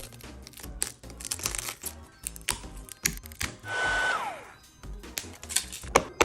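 Background music with scattered clicks and taps. About a second of hissing whir from a small motor appliance runs midway, and its whine falls away as it is switched off and winds down.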